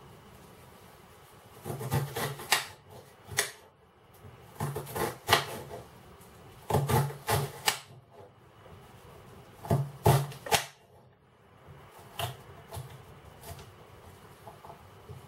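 Kitchen knife dicing an onion on a glass chopping board: short runs of quick, sharp taps as the blade hits the board, with brief pauses between the runs.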